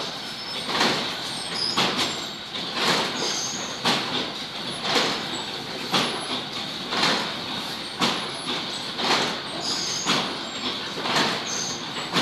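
Automatic water bagging machine running, with a sharp mechanical stroke about once a second over a steady machine hum.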